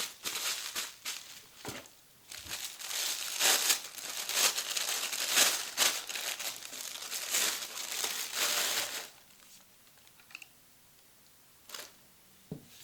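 Packaging crinkling and rustling as a camera battery grip is unwrapped, stopping about nine seconds in; a few small clicks and taps follow.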